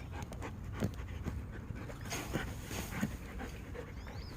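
Dog panting, a series of quick, uneven breaths.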